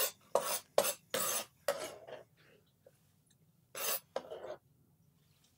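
Serrated knife on a plastic cutting board while dicing Roma tomatoes: a quick run of short cuts and scrapes in the first two seconds, then two more about four seconds in.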